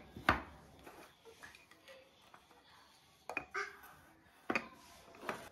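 A metal spoon clinking against plastic spice jars and a dry frying pan as spices are spooned in: a handful of sharp taps, the loudest just after the start, then several more in the second half.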